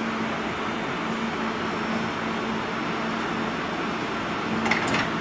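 Steady whirring hum of standing electric trains' onboard equipment, such as air-conditioning blowers and fans, idling, with a few light clicks near the end.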